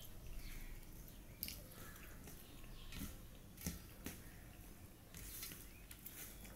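Soft eating sounds: wet rice and egg curry squished and mixed by hand on a steel plate, with scattered light clicks.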